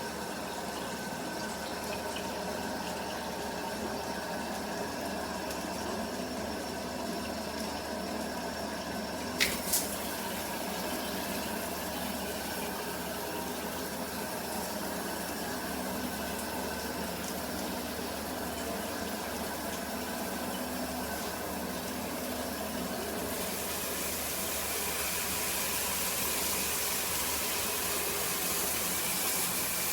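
Water spraying steadily from a handheld shower head, with two sharp clicks about nine and a half seconds in. A little past the middle of the second half the spray gets brighter and slightly louder.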